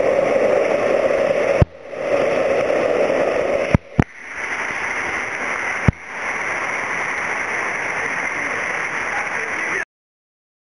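Rushing whitewater of a mountain gorge stream pouring through a narrow rock channel, a steady hiss. It is broken several times by sharp clicks and brief dropouts where the recording is spliced, and it cuts off abruptly near the end.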